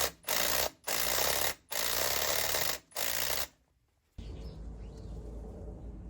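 A power tool run in about four short bursts, each starting and stopping abruptly, then stopping; after a brief silence a steady low hum follows.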